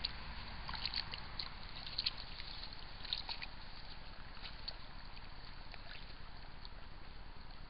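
Eurasian beaver moving through shallow water at the bank: a scatter of small splashes and clicks over the first three seconds or so, over a steady faint hiss.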